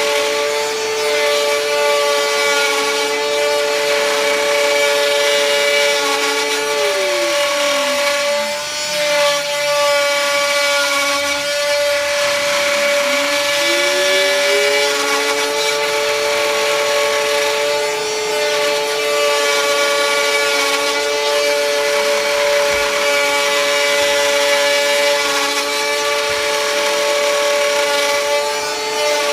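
TTA 3020 desktop CNC router milling wood flooring: a steady high-pitched whine over a cutting noise. A second tone slides down about seven seconds in, drops out, and climbs back between about twelve and fifteen seconds.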